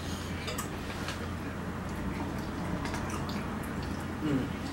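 Quiet eating sounds: a spoon lightly clicking and scraping in a bowl of soup and soft wet mouth noises, over a steady low hum.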